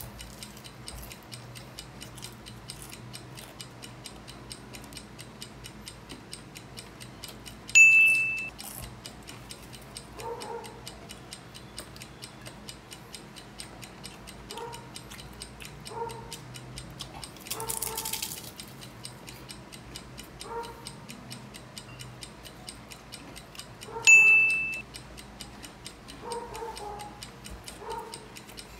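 A clock ticking steadily. A bright chime sounds twice, about 8 and 24 seconds in, and a short crunch of a bite into a hard, crisp fried spring roll comes between them.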